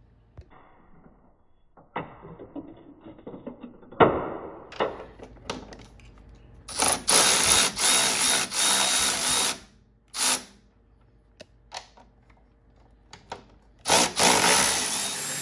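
A few metallic clicks and clanks of hand tools on the car's suspension, then a power tool runs in bursts as the suspension bolts are taken out: one of about three seconds, a brief one near ten seconds, and another starting near the end.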